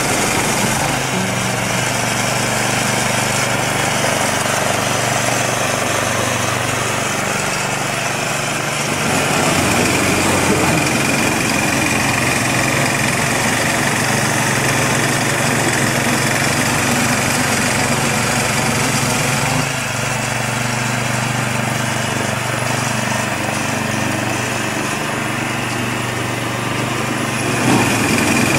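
Engine of a MARKO walk-behind tiller running steadily, driving a belt-driven snow blower attachment that is throwing snow.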